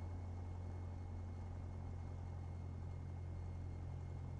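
Piper PA28's piston engine running steadily at taxi power, heard faintly through the aircraft intercom as a low hum with a thin, steady high whine over it.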